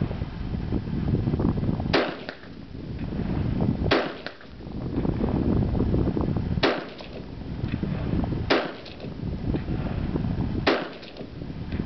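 Rifle fired from a bench, five shots about two seconds apart, each with a short echo. Between shots, a low rumble of wind on the microphone.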